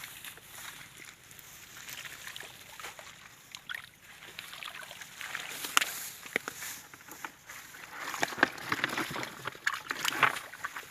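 Water sloshing and splashing, with many irregular sharp splashes that grow busier in the second half.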